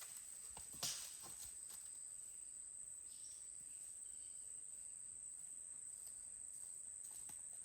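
Insects trilling faintly and steadily at one high pitch, with a single click about a second in.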